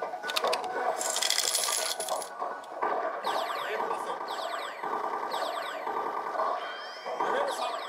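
Pachislot machine in play: clicks and a short burst of noise in the first two seconds, then electronic sound effects with sweeping high tones repeating about once a second.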